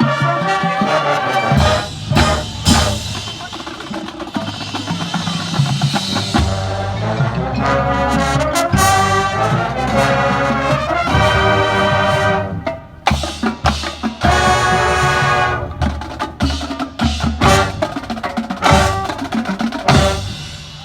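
Marching band playing: brass chords over drums and percussion, with sharp accented hits, easing off near the end.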